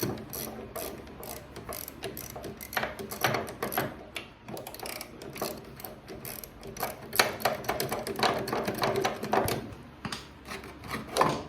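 Hand ratchet clicking in quick, uneven strokes as it backs out the 13 mm mounting bolts of a brake master cylinder.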